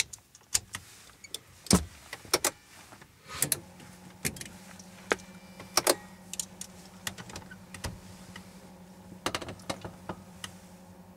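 Cockpit switches on a Beechcraft King Air C90 panel being clicked one after another, about a dozen sharp clicks spread unevenly. About three seconds in, a steady low hum comes on and stays, as the aircraft's electrical equipment powers up before engine start.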